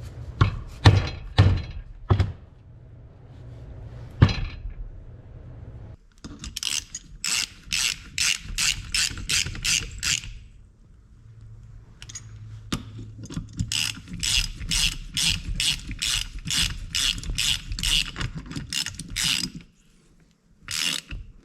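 A ratchet wrench being worked in two long runs of quick clicking strokes, about two to three a second, with a few separate metal knocks near the start.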